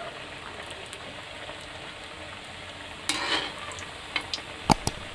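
Khaja pastries deep-frying in refined oil in a kadai, a steady sizzle. About three seconds in, a utensil scrapes through the oil, and near the end it gives a couple of sharp knocks against the pan.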